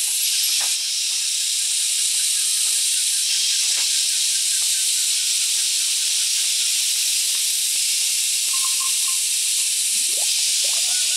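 A steady, fairly loud high-pitched hiss with nothing deep under it, and a few faint short chirps and whistles over it, one of them a quick rising glide near the end.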